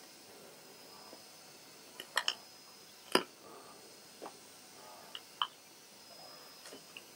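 Spotted hyena biting and tearing at a downed wildebeest: a handful of short, sharp snaps and wet clicks, scattered irregularly over faint background hiss, the loudest about three seconds in.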